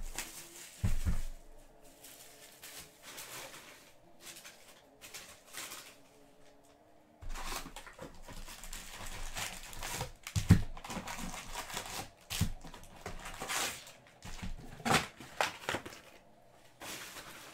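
Foil trading-card pack wrappers crinkling and rustling as the packs are handled and taken out of a cardboard Donruss Soccer box, in irregular bursts with a few soft thumps as things are set down.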